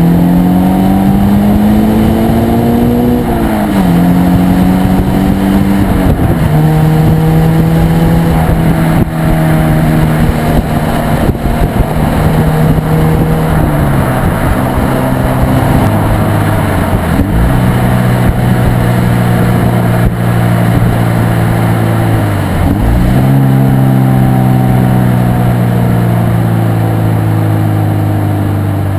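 Stock exhaust of a 2013 Subaru BRZ's flat-four, heard at the tailpipe while driving. The revs climb under acceleration, the pitch drops sharply at a gear change about four seconds in, and the engine then runs at steadier revs with several brief dips, easing down near the end.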